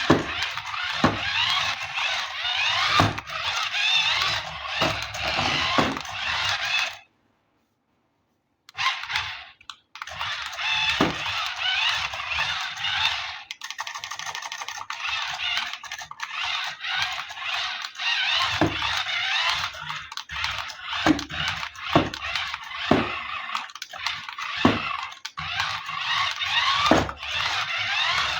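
Plastic packaging crinkling and rustling while handled, with frequent small clicks and knocks of hard plastic, broken twice by abrupt cuts to silence.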